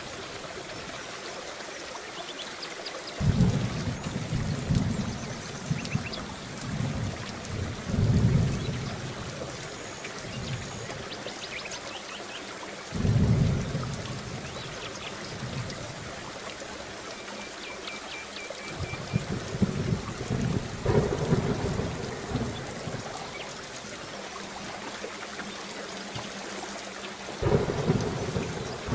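Heavy rain falling steadily, with thunder rumbling low and deep several times, each roll swelling up and dying away over a second or two.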